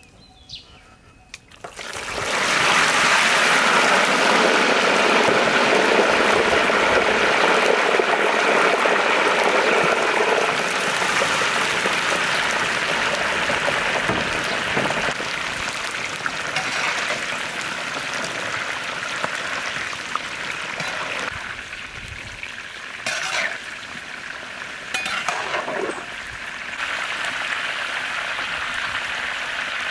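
Whole long eggplants deep-frying in a wok of hot oil: a loud, steady sizzle that starts suddenly about two seconds in and eases a little after about ten seconds, with two short clatters of a utensil in the pan near the end.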